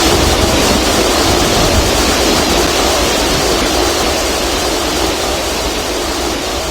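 Jet aircraft engine noise, a loud steady rushing roar that slowly fades towards the end.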